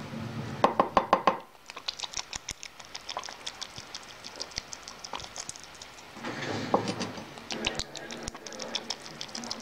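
A rabbit lapping tea from a mug: a fast, loud run of wet clicking laps about half a second in, then scattered smaller licks and mouth clicks as it laps and licks its lips.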